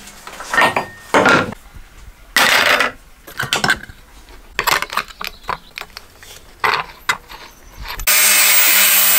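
Hand tools knocking and scraping on metal in short irregular bursts. About eight seconds in, an angle grinder fitted with a thin 1 mm metal cutting disc starts up, loud and steady.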